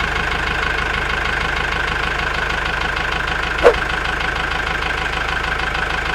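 Mini tractor's small engine idling steadily with an even, rapid pulse. One short, sharp sound cuts in about two-thirds of the way through.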